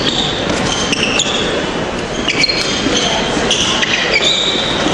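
Sports shoes squeaking in short chirps on a wooden sports-hall court, many times and from several directions, over a steady murmur of crowd chatter in a large echoing hall, with a few sharp clicks.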